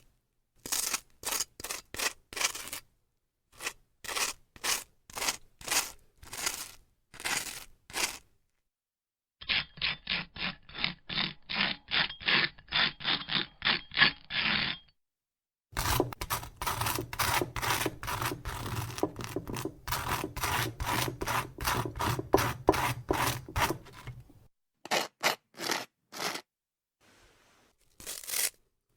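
Butter knife spreading butter on grilled toast: repeated short scraping strokes across the crisp bread. They come in several runs with short gaps: single strokes at first, then quicker, denser spreading, then a few last strokes.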